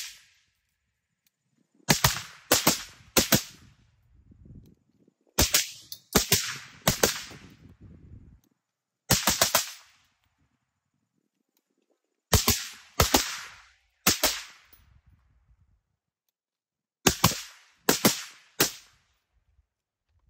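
Suppressed 11.5-inch AR carbine with a DDC Enticer S stainless-steel suppressor firing about fourteen shots, mostly in quick strings of three with a few seconds between strings. Each shot is a short sharp crack with a brief echo after it.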